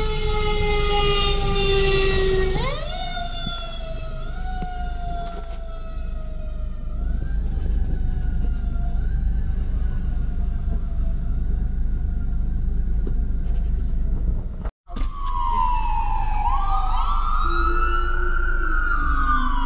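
Fire truck siren wailing, its pitch sliding slowly down, then jumping up and wavering up and down, over a steady low engine rumble. After a momentary dropout near the end, another siren sweeps down and back up, two siren tones overlapping.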